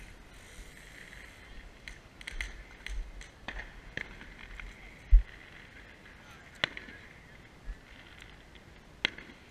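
Scattered sharp pops of firecrackers, several in quick succession a couple of seconds in and single ones later, with a dull low thump near the middle that is the loudest sound; faint voices in the background.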